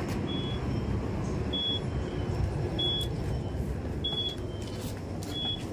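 Five short, high electronic beeps about 1.3 s apart from a commuter train's open doorway, the beeper that sounds while the doors stand open, over the low steady rumble of the train standing at the platform.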